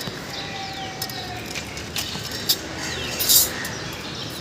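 Scattered light clicks and taps of engine parts being handled during reassembly, over a steady background hum with a few faint falling chirps and a brief hiss about three seconds in.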